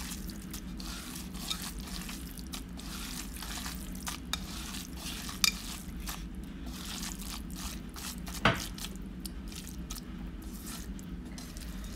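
Cooked rice being kneaded by hand with fish curry in a clay chatti: soft squelching and rustling, with scattered light clicks and two sharper ones, about five and a half and eight and a half seconds in.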